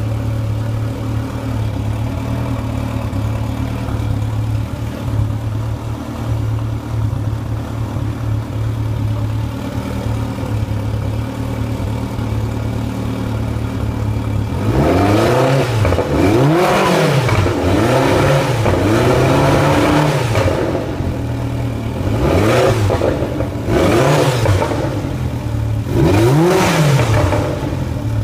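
Mercury outboard engine running during carburetor synchronization: it idles steadily for about half the time, then the throttle is blipped several times, each rev rising and falling back to idle.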